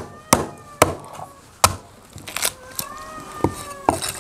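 Heavy cleaver chopping through a grass carp onto a round wooden chopping block. Four sharp strikes come in the first two seconds, then a couple of lighter knocks near the end.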